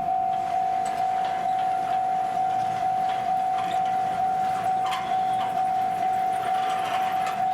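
Railway level crossing warning bell sounding one steady, repeated tone, about two strokes a second, with faint clattering underneath.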